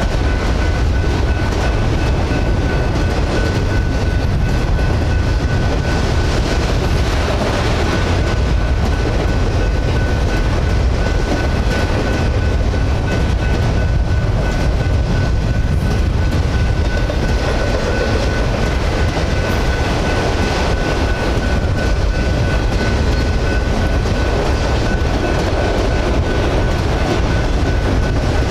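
Autorack freight cars rolling past close by: a steady deep rumble of the cars, with the clatter of steel wheels on the rails.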